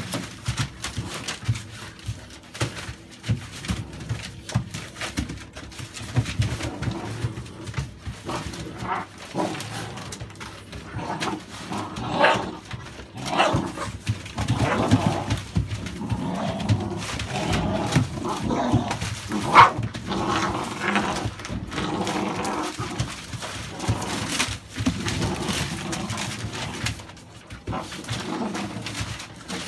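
American bully puppies play-fighting over a rag: short yips and scuffling, with newspaper rustling and crackling under their paws, and a few sharper yelps along the way.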